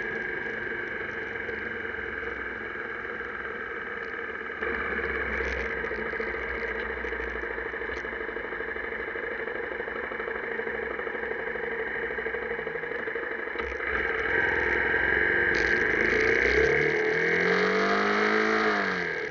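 Honda Tornado 250 single-cylinder motorcycle engine running steadily on the move. It gets louder about 14 seconds in, then its pitch falls away near the end as the revs drop.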